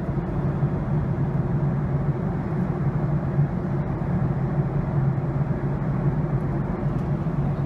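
Jet airliner cabin noise during descent: a steady low hum with an even rushing hiss of engines and airflow.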